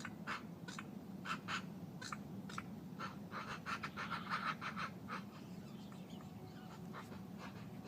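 A flock of ducks quacking: many short calls in quick, irregular succession, some overlapping, over a steady low hum.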